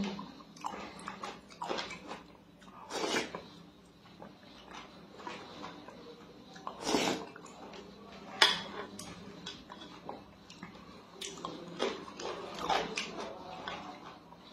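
Close-up eating sounds: a wooden spoon scooping rice porridge and knocking against the metal inner pot of a rice cooker, with mouth sounds of eating. Short clicks and smacks come irregularly, a few louder knocks among them.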